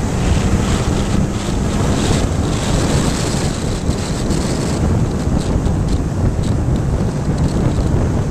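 Wind buffeting the microphone over the engine and road noise of a 1930 Ford pickup rat rod driving along at cruising speed. A steady engine drone stands out for about the first two seconds, then is mostly covered by the wind.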